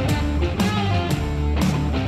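Background music led by guitar, with a steady beat of about two strokes a second and some notes sliding down in pitch.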